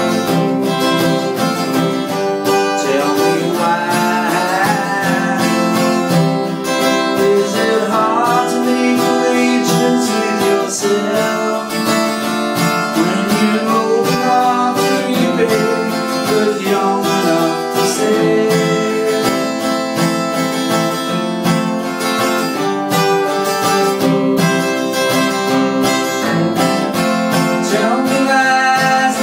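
Steel-string acoustic guitar strummed in steady chords, with a man singing a song over it.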